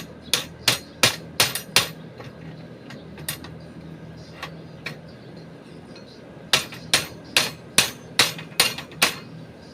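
Hammer blows in two quick runs of about three strikes a second, with a few lighter taps in the pause between them.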